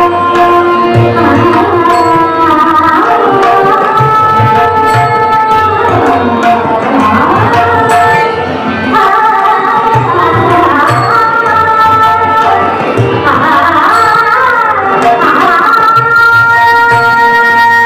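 Devotional bhajan music: a singer's voice holding long notes and gliding between them in an ornamented melody, over a steady tabla rhythm.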